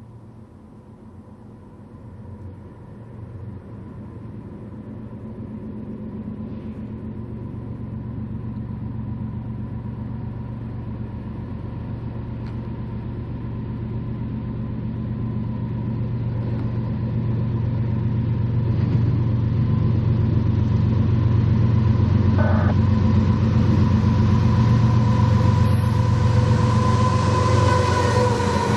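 BNSF diesel freight locomotives approaching, their low engine rumble growing steadily louder for about twenty seconds and then holding loud as they draw near.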